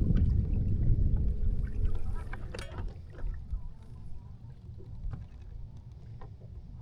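Low rumble of a fishing boat on the water, dying down over the first three seconds, with a faint steady hum that stops about two seconds in and a few light clicks.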